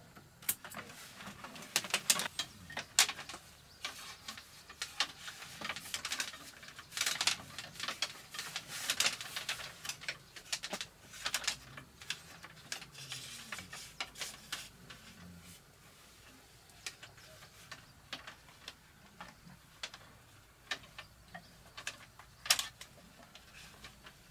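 Irregular clicks, taps and rustles of electrical cable and tools being handled against a bamboo post as the wire is fastened up it, busiest in the first half and sparser later, with one sharp click near the end.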